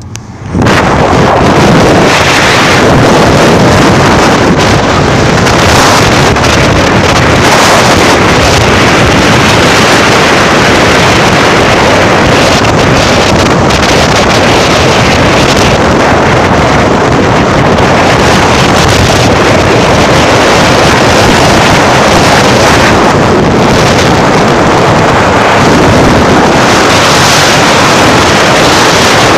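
Loud wind rushing over a phone microphone at a moving car's open window, with road and traffic noise underneath. It starts suddenly about half a second in and stays steady.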